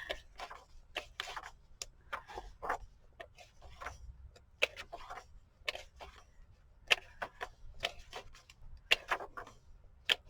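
Pages of a book being turned and handled: irregular short paper rustles and soft clicks, a few a second.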